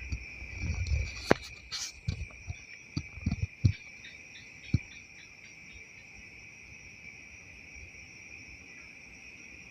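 Crickets chirring in a steady, unbroken high-pitched drone, with a scatter of knocks and low thumps in the first five seconds.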